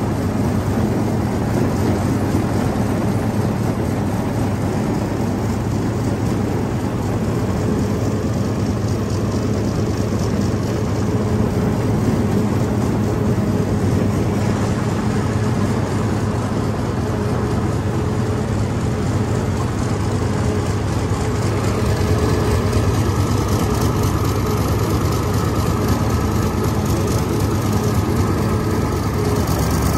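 Hino F21C V8 diesel engine of a paddy-field mud tractor running steadily, a deep continuous drone at constant speed. A faint higher whine joins about two-thirds of the way through.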